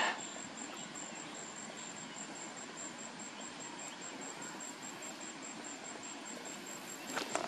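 An insect calling in a high, steady pulse repeated evenly about three times a second, over a faint hiss of outdoor background. A few faint clicks come near the end.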